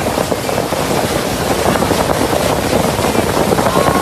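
Motorboat running fast across open water: a steady rush of wind buffeting the phone's microphone over the noise of the hull and spray.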